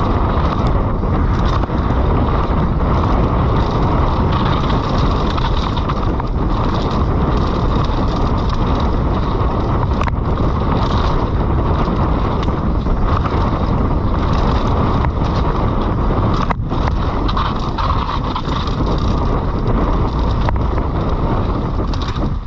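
Mountain bike descending a wet trail: wind rushing over the helmet or action-camera microphone, with the steady rush of tyres on the trail and frequent small knocks and rattles from the bike.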